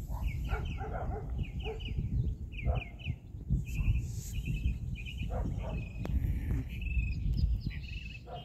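Small birds chirping over and over in quick short groups, with a dog barking a few times, over a low rumble of wind.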